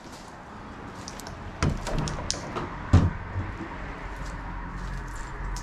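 Two knocks, the second, about three seconds in, the louder, among scattered small clicks, over a low hum.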